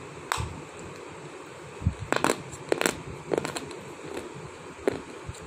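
Slate stone being chewed, a series of sharp, irregular crunches.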